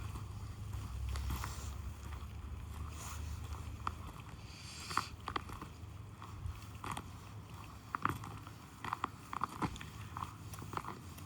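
Low wind rumble on the microphone that eases after about five seconds, with irregular sharp crunching clicks through the second half.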